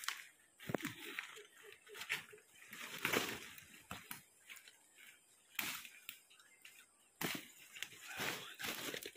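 Footsteps and rustling through leaf litter and forest undergrowth, with branches and leaves brushing past, coming in irregular bursts.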